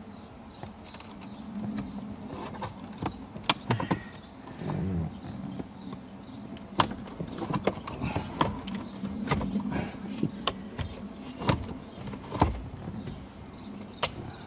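Irregular sharp plastic clicks, taps and creaks as a plastic pry tool works the air-conditioning vent panel loose from a Subaru WRX STi dashboard, over a low steady hum.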